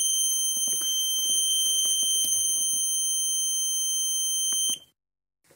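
Flymo 1200R robotic mower's alarm sounding one continuous high-pitched beep while the PIN code is keyed in, with faint clicks under it. It cuts off suddenly near the end.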